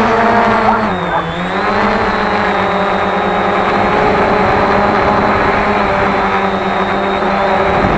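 Cheerson CX-20 quadcopter's brushless motors and propellers whining steadily, the pitch dipping briefly about a second in and then holding, over a low rumble of wind buffeting.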